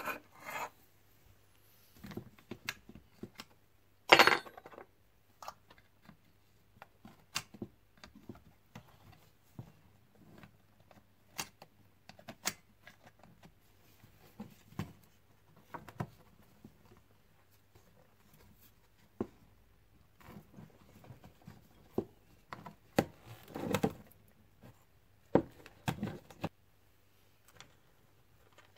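Irregular clicks, knocks and rubbing of plastic and metal parts being handled and taken apart: a Honda VFR400 NC30 headlight and instrument bracket assembly being dismantled on a wooden workbench. The loudest knock comes about four seconds in, and there is a busier run of knocks later on.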